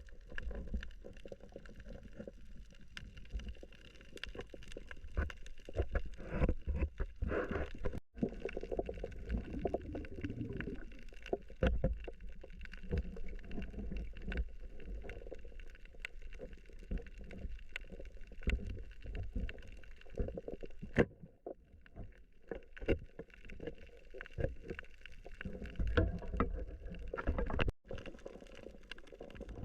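Underwater sound picked up by a camera in its housing during a spearfishing dive: a low rumble of moving water with scattered sharp clicks and knocks, swelling louder now and then.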